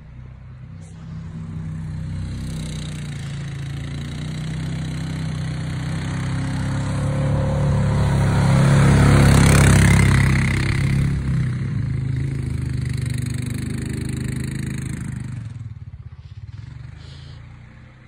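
A four-wheeler (ATV) pushing snow with its plow. Its engine draws near, is loudest about nine to ten seconds in as it passes close, then moves away and fades out near the end.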